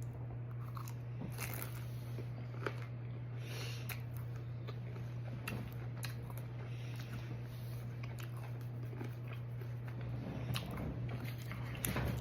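A person chewing and biting into pizza rolls close to the microphone, with many small crunches and mouth clicks, a little louder near the end, over a steady low hum.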